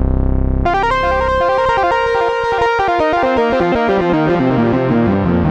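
Modal Electronics Cobalt 8X virtual-analogue synthesizer playing a factory preset, recorded dry. A sustained low chord cuts off about half a second in, and a fast run of plucked notes follows, stepping up and down in pitch.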